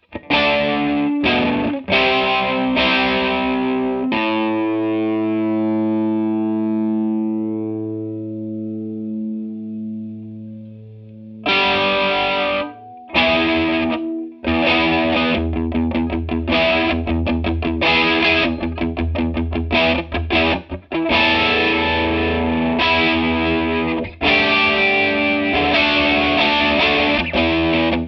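Electric guitar played through a TC Electronic Corona Mini chorus pedal. A few strummed chords come first, then one chord left to ring and fade for about seven seconds. From about twelve seconds in, it turns to a busy rhythm part with a strong low end.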